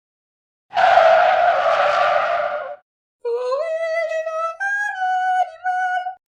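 A tyre-screech sound effect lasting about two seconds, then, after a short gap, a short tune of about four held notes that glides up at the start and steps up and down in pitch.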